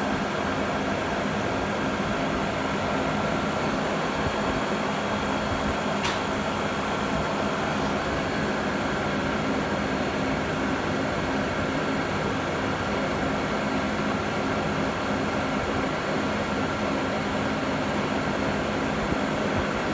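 Steady machine hum with a faint steady high tone, unchanging throughout; a single short click about six seconds in.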